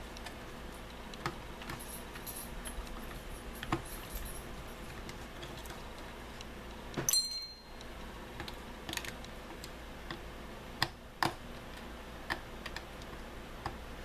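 Scattered small clicks and taps of a screwdriver bit and hard plastic as screws are turned out of a toy quadcopter's leg, with a louder metallic clink about seven seconds in.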